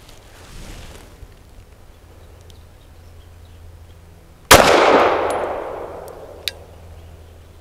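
A single 9mm pistol shot from a Lone Wolf Arms Dusk 19 firing Fort Scott Munitions 115-grain turned-copper rounds, about halfway through, its echo dying away over about two seconds. A short sharp tick follows near the end.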